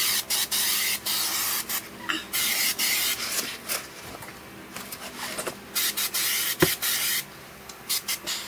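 Aerosol can spraying in several hissing bursts along the seam of a sheet-metal access-panel frame: a long burst at the start, shorter ones after it, and another long burst about two-thirds of the way through.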